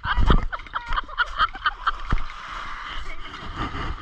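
Wind buffeting the microphone in a low rumble near the start, under background voices and a scatter of light clicks.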